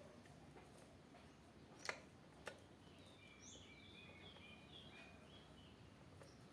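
Near silence with two sharp clicks about two seconds in, followed by faint bird chirping: a quick run of short notes.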